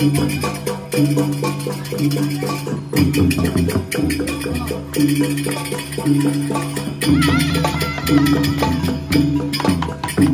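Balinese gamelan playing the barong accompaniment: fast, dense clashing of small cymbals over held, ringing gong and metallophone notes that change about once a second.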